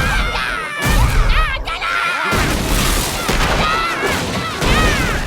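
Cartoon yaks stomping: heavy crashing booms, about one every second and a half, as they stomp a log to pieces.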